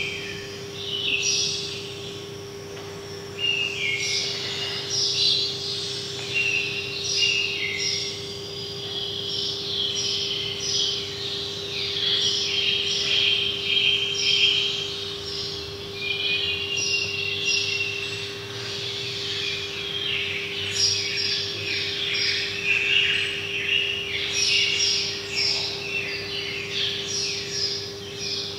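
Several birds chirping in a dense, continuous run of short high calls, over a steady low hum.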